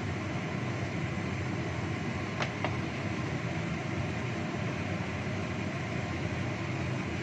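Chicken wings in sweet soy-sauce gravy simmering in a wok over a gas stove: a steady rumbling bubble and hiss, with two light clicks about two and a half seconds in.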